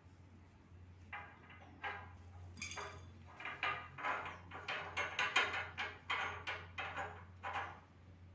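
Adhesive tape pulled off its roll in a series of short rasping tugs, about a dozen over several seconds, while a paper label is taped onto a marble slab.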